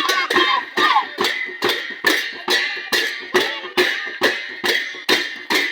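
Music for a Sakela dance: an even beat of sharp percussive strikes, about two and a half a second, with a voice singing over the first second.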